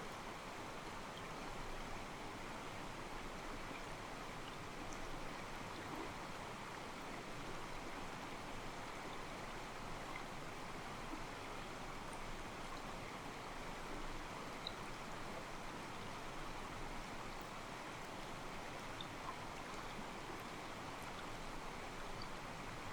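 Calm mountain stream, water sloshing and trickling steadily against rocks.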